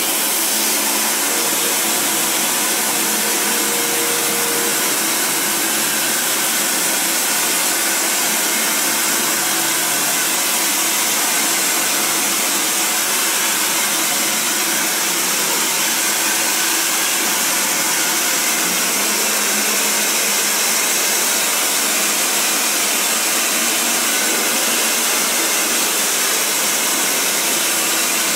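Handheld electric hair dryer running on a steady blow, drying the yellow coating on a silk-screen printing frame. The airflow rush holds an even, unbroken level throughout.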